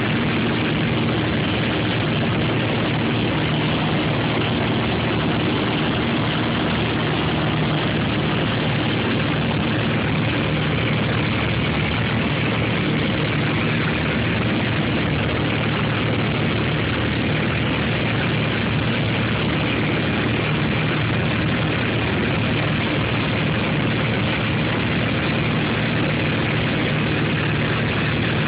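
Piper PA-28 single-engine light aircraft's piston engine and propeller droning steadily, heard from inside the cabin in flight, with an even hiss over the low engine hum.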